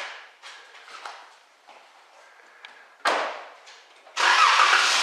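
Car door opening, then slammed shut about three seconds in; about a second later the 2011 Dodge Charger's engine starts and runs loudly, showing that the freshly installed battery has cranked it.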